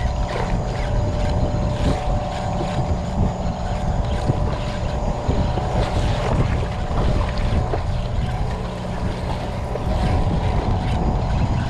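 Steady engine hum from the fishing catamaran, with wind rumbling on the microphone throughout.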